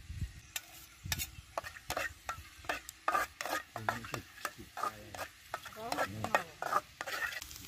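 Metal ladle scraping and clinking irregularly against a wok as food is stir-fried in hot oil, with sizzling underneath; the strokes start about half a second in.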